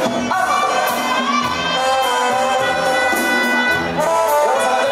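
Brass band music: trumpets and trombones playing held notes over a pulsing bass line.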